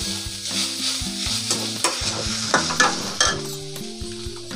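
Grated cabbage sizzling in hot oil in a metal kadai while a flat metal spatula stirs it, scraping against the pan, with a few sharper scrapes a little past the middle. The cabbage is being fried with the ground spices just added.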